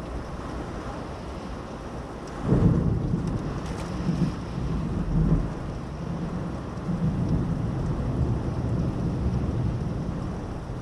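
Thunder: a sudden clap about two and a half seconds in that rolls on in low rumbling surges, over steady rain.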